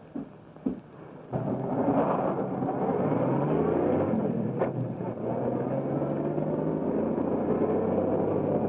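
Open touring car's engine running as the car drives at speed, its pitch rising as it gathers speed; the sound starts abruptly about a second in.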